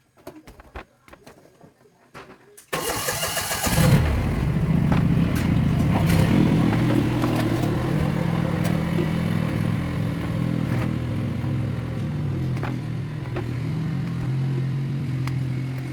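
An engine is started a little under three seconds in. It cranks noisily for about a second, catches, and then runs steadily at an even idle with a light rattle.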